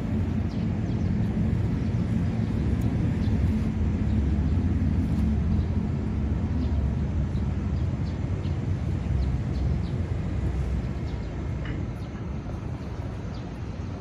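Low, rough outdoor rumble, louder in the first half and easing off later, with a few faint scattered ticks.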